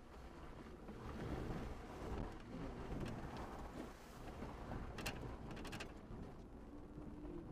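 Vehicle driving slowly over a rough, muddy dirt trail, heard from inside the cab: a steady low rumble of engine and tyres, with a quick cluster of clicks and rattles about five seconds in and a steady hum setting in near the end.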